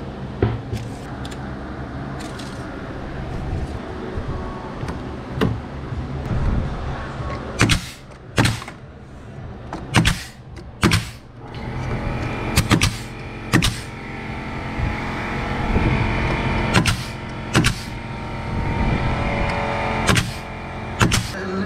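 Nail gun firing into tongue-and-groove ceiling boards: sharp single shots, often two close together, about a dozen in all from a third of the way in, over a steady low hum.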